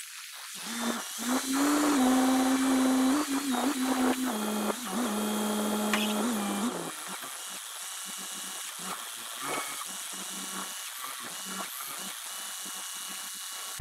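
Telescoping forklift's engine and hydraulic pump whining under load as the boom pushes a stack of hay bales into a trailer. The pitch steps up, then drops about four and a half seconds in, and the whine cuts off at about seven seconds. A quieter, lower hum with a few knocks follows.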